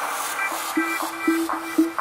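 Electronic background music with a steady beat, short pitched notes repeating about four times a second.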